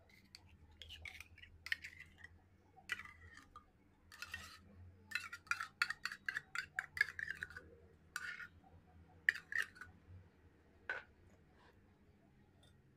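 A metal spoon scraping and clinking against a glass jar and a ceramic plate as a thick spread is scooped out and smeared. Scattered scrapes at first, then a quick run of rapid scrapes in the middle, then a few more and a last lone click.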